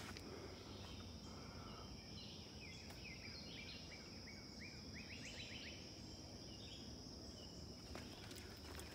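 Faint woodland sound: a steady high-pitched insect drone, with a songbird singing short phrases through the middle, including a quick run of rising notes about five seconds in.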